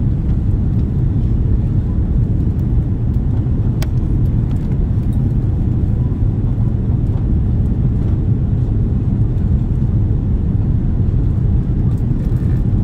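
Steady low rumble of cabin noise inside an Airbus A330 airliner descending on approach: engine and airflow noise heard from a window seat. A faint short click about four seconds in.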